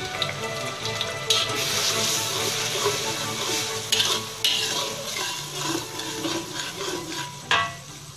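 A blended paste of onion, garlic, chilli and dried shrimp sizzling in hot oil in an aluminium wok, the first stage of sautéing the spice paste. A metal spatula stirs it with a few scrapes and knocks against the wok, the loudest near the end.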